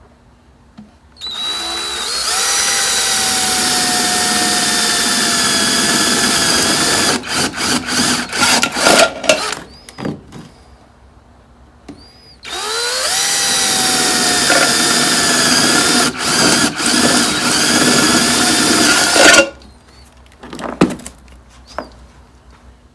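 Electric drill boring holes through a jar lid in two long runs. Each run spins up to a steady whine that sags slightly as it bites, then ends in a string of short trigger blips.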